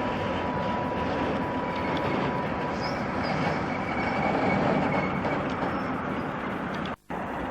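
A train running past on the railway line: a steady rumble with a faint high squeal for a few seconds in the middle. The sound cuts out for a split second near the end.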